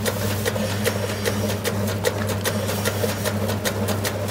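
Electric meatball-forming machine running: a steady motor hum under a quick, irregular clicking clatter as it shapes meat paste into balls.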